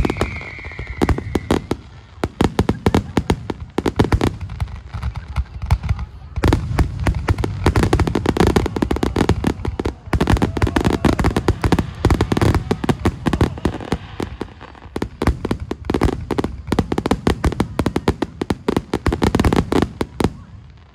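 Fireworks finale barrage: many aerial shells bursting in rapid, overlapping succession with crackle, and a falling whistle near the start. The barrage stops shortly before the end.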